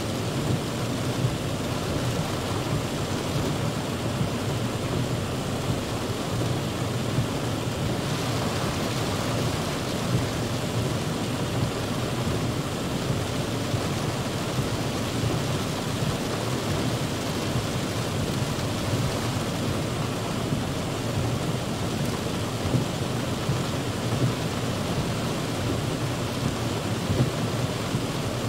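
Heavy rain falling on a car's roof and windshield, heard from inside the car: a steady, dense hiss with scattered louder drop hits.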